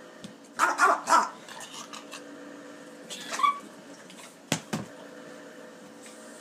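French bulldog barking in short bunches: three quick barks about half a second in, a couple more around three seconds in, and two sharp ones about a second after that.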